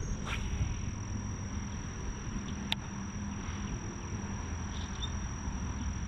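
Steady high-pitched insect drone over low wind rumble on the microphone, with one sharp click about two and a half seconds in.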